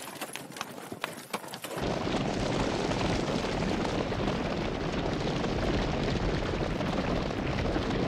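Hooves of pack mules and horses clopping on rocky ground, then about two seconds in a large herd of horses galloping: a dense, steady rumble of many hooves.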